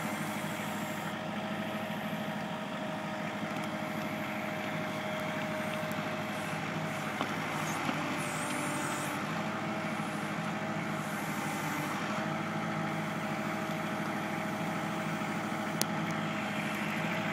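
Kubota L4400 tractor's diesel engine running steadily while working its BH92 backhoe, with a thin steady whine over the engine note. A few short sharp knocks come about 7 and 8 seconds in, and again near the end.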